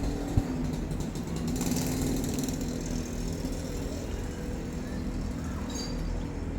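A small engine running steadily, with a single sharp click about half a second in.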